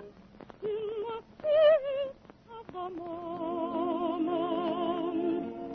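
A female singer holding sung notes with a wide vibrato over orchestral accompaniment, with short breaks between phrases. It is an old, narrow-band radio broadcast recording.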